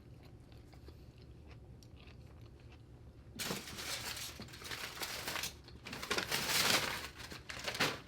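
Close-miked mukbang eating sounds: loud crunching and chewing of food, starting about three and a half seconds in after a quiet start and going on in two or three stretches.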